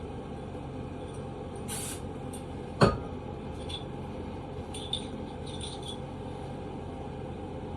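Handling noise from cleaning a Glock pistol: a brief rustle, then one sharp knock nearly three seconds in, followed by faint small clicks, over a steady low hum.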